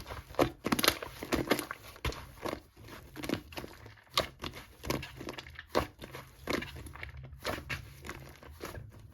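Slime being squeezed and stretched by hand, giving irregular sticky clicks and pops several times a second.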